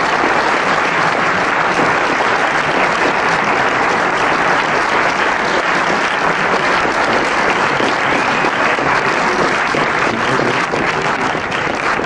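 Audience applauding: dense, steady clapping from a full hall that thins into scattered separate claps near the end.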